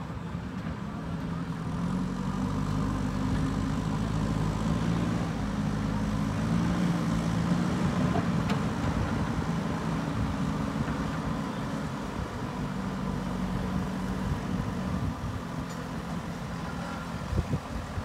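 Diesel engine of a JCB 3DX backhoe loader running as the machine moves, its note picking up about two seconds in and easing off somewhat in the second half. A few sudden thumps come near the end.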